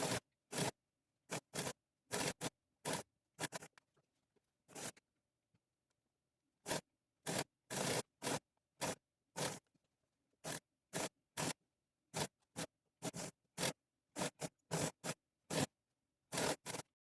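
Sewing machine stitching in many short raspy bursts, one after another, with dead gaps between them and a longer pause a few seconds in.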